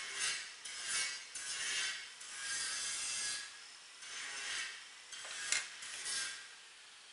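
Irregular rubbing and scraping from hand work on a hot-melt glue gun: a wrench at its brass nozzle fitting and its heavy hose being handled, with a sharp click about five and a half seconds in. The noise dies down near the end.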